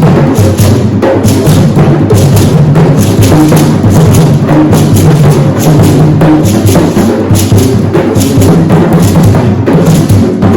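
Hand drums played together in a dense, continuous rhythm of closely spaced strokes.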